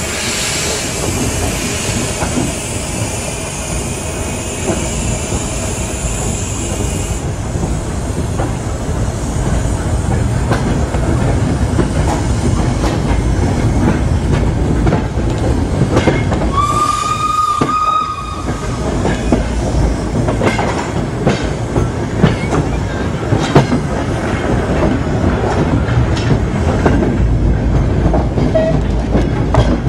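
Andrew Barclay steam locomotive 'Colin McAndrew' on the move: a steady high steam hiss that cuts off suddenly about seven seconds in, then the rumble and clicking of wheels over rail joints and pointwork. One short whistle blast sounds about halfway through.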